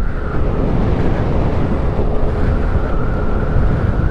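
Engine running at a steady pitch under a heavy rumble of wind on the microphone.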